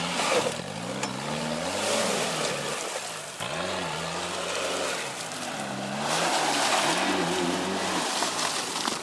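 Off-road 4x4's engine revving up and down in about five swells, under a steady rushing noise.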